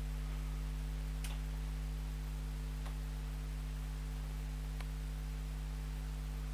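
Steady electrical mains hum, with three faint ticks spread through it.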